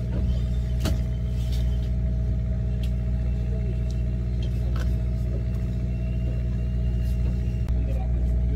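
Fishing boat's engine running steadily, a low drone, with a few sharp clicks about a second in and later.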